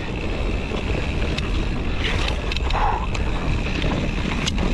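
Mountain bike running down a dirt singletrack: tyres rumbling over the trail, with wind buffeting the helmet-mounted camera microphone and a few sharp clicks from the bike rattling over bumps.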